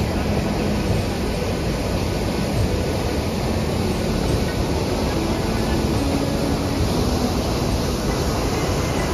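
Devi's Fall (Patale Chhango) waterfall in full monsoon flow, plunging into its gorge: a steady, deep rush of falling water.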